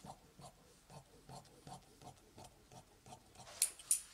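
Tailor's shears snipping through cotton-poly dress fabric on a cutting table, a faint steady rhythm of about two or three cuts a second. Near the end come two sharp metallic clicks close together, then a soft rustle of fabric.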